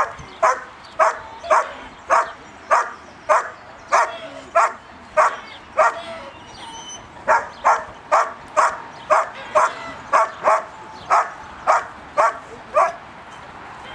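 A dog barking steadily at a helper hidden in a protection blind: the hold-and-bark exercise of a working-dog trial. The barks come evenly, about two a second, with one pause of about a second and a half in the middle.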